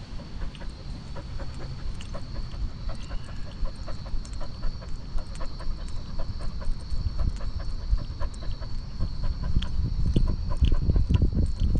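A dog panting close to the microphone over a steady low rumble and quick rustling clicks, louder over the last couple of seconds.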